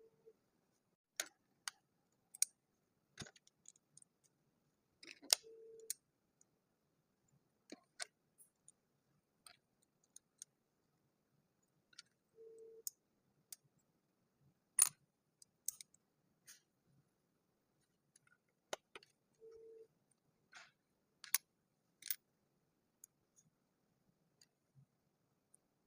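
Plastic building-block pieces being handled, giving scattered sharp clicks and light knocks at irregular intervals. A short low beep recurs about every seven seconds.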